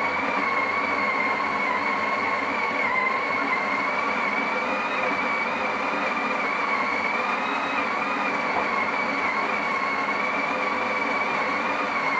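Sage (Breville) Oracle Touch's built-in conical burr grinder running, grinding coffee beans straight into the portafilter: a steady motor whine over a dense grinding noise, its pitch wavering only slightly.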